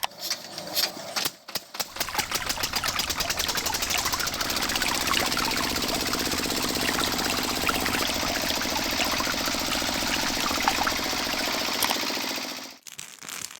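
A small motor running with a fast, even rattle and a steady hum. It builds up over the first few seconds and cuts off suddenly near the end.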